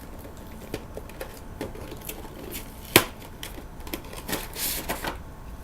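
Action figure packaging being opened by hand: a string of sharp clicks and snaps, one loud crack about three seconds in, and a brief ripping rustle near the end.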